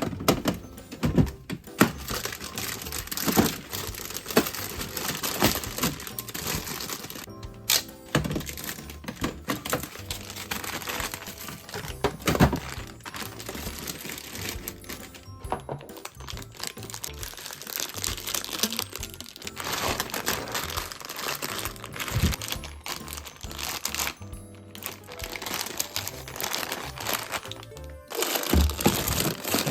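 Plastic packaging crinkling and irregular clicks and knocks of items being handled, under background music.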